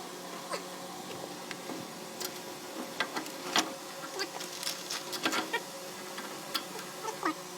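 Scattered light clicks and taps of hand tools and metal parts at irregular intervals over a steady hum, during work on an axle differential.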